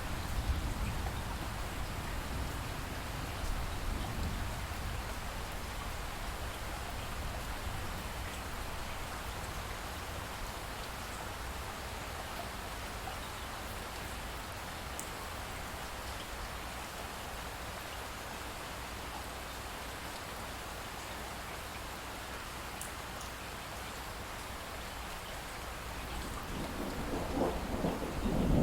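Steady light rain falling, with a low rumble underneath and a few faint drips. Near the end, a roll of thunder starts to build and swell.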